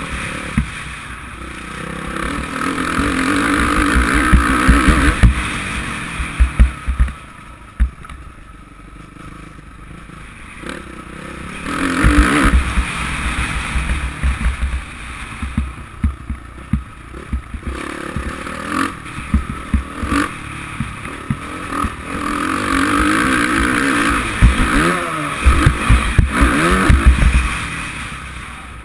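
Suzuki RM-Z450 single-cylinder four-stroke motocross engine under riding load. The revs build and fall away several times as the throttle is opened and shut, with pitch sweeps near the end. Wind buffets the microphone, and short thuds come from the rough track.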